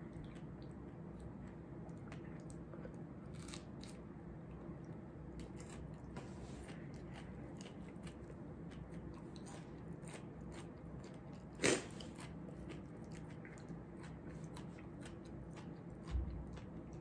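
A person chewing a crunchy spicy challenge snack, the 'Crunchy', with faint crunches and mouth clicks throughout. One sharper, louder noise comes about twelve seconds in, and a low thump near the end.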